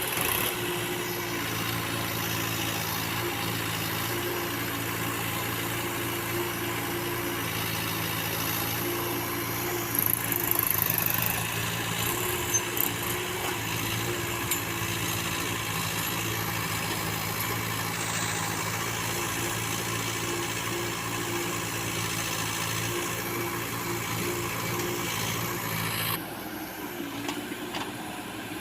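Backhoe loader's diesel engine running steadily at working revs, with a short hiss about ten seconds in. Near the end the engine note drops and quietens, settling toward idle.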